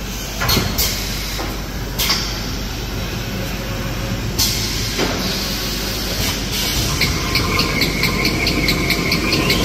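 Glue-lamination toilet paper and kitchen towel making machine running: a steady mechanical hum of rollers and drives, joined in the second half by a fast, regular ticking.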